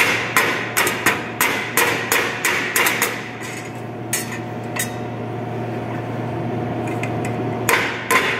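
Rubber mallet striking a thin rolled sheet-steel duct ring, knocking it true because the rolling left it out of shape. The quick blows come about three a second, each with a short metallic ring. They stop about three seconds in, two single strikes follow, then a steady hum, and the rapid blows resume near the end.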